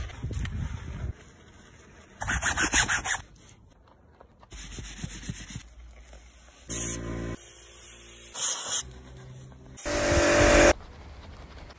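Detailing brushes scrubbing foamy car surfaces in a run of short cuts, with a fast scrubbing rhythm about two seconds in. A brief machine hum comes midway, and a loud hiss comes about ten seconds in.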